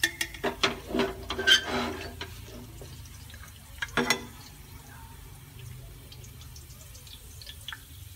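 Metal mesh skimmer knocking and clinking against a stainless steel pot as fried grated carrot is scooped out of the oil: a quick run of ringing metal taps in the first two seconds and a couple more about four seconds in. Faint drips follow.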